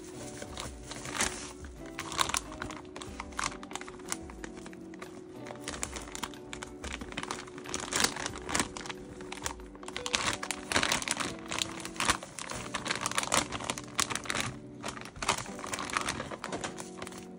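Plastic packaging crinkling in bursts as bubble wrap and a plastic slipper bag are handled, over steady background music.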